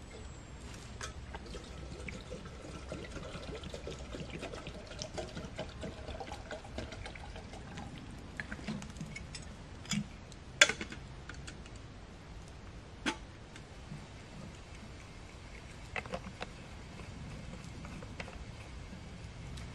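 Water poured from a bottle into a small metal kettle, the pitch rising as it fills over the first several seconds. Then a few sharp metal clinks and knocks as the kettle is handled and set on the twig stove, the loudest about halfway through.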